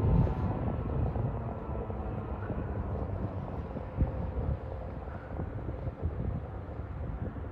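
Federal Signal 2001-SRN electromechanical siren winding down at the end of its short alert test: its steady tone falls slightly in pitch and fades out within the first second. Wind rumbles on the microphone throughout, and a faint steady siren tone lingers in the background later.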